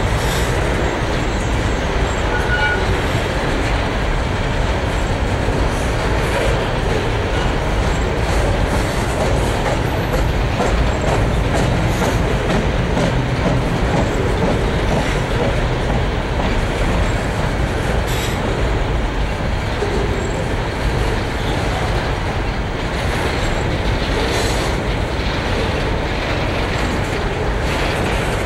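Freight train's covered hopper cars rolling past close by: a steady rumble of steel wheels on the rails, with scattered clacks as the wheels cross rail joints.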